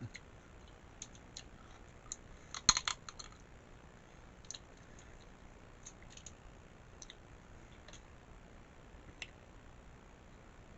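Scattered small clicks and crackles of crab shell being handled and picked apart while eating, with a short cluster of sharper cracks about three seconds in.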